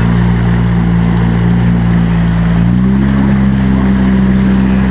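Outboard motor running steadily as it drives a small boat along a river, with water and wind rushing past; the engine note rises slightly about three seconds in.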